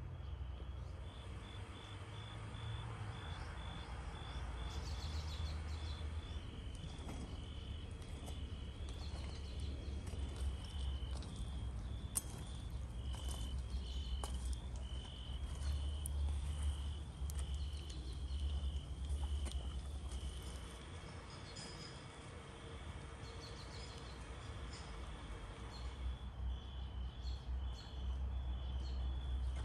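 Crickets chirping in a steady, even run of high pulses over a low background rumble, with scattered faint clicks.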